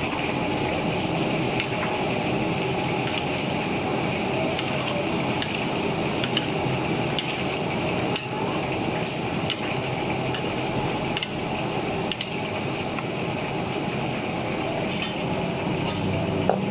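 Steady cooking noise from a wok of jengkol stew in spiced sweet-soy sauce over the stove, with a metal spatula scraping and clinking against the wok as it is stirred.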